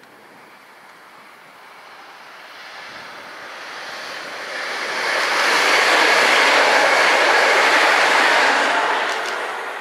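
Great Northern Class 365 electric multiple unit approaching and passing at speed: an even rush of wheel and air noise with no engine note, swelling over several seconds, loudest for about three seconds past the middle, then starting to fade, with a few quick ticks near the end.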